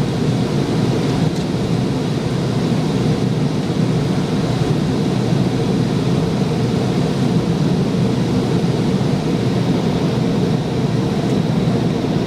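Steady cabin noise inside a McDonnell Douglas MD-88 in flight: a constant low rumble from its rear-mounted turbofan engines and the airflow, heard from a rear seat near the engines.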